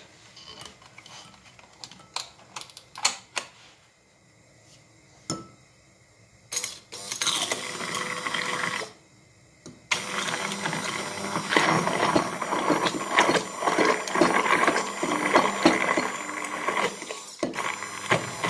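Electric blender whipping egg whites with oat flakes. After a few quiet handling clicks it runs in a short burst of about two seconds, stops, then starts again about ten seconds in and keeps running.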